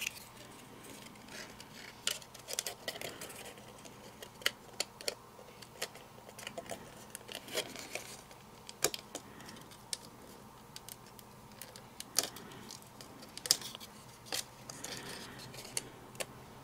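Stiff cardstock being handled: scattered small clicks, taps and rustles as die-cut paper layers are opened out and tucked into their tabs, over a faint low hum.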